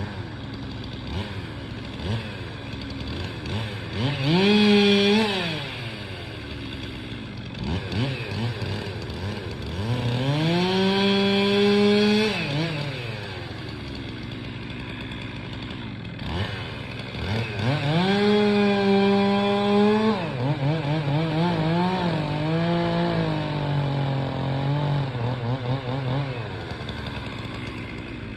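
Stihl chainsaw revving in three throttle bursts, each rising sharply, holding briefly and dropping back to idle. Near the end the engine speed wavers up and down before it settles. A steady low hum runs underneath.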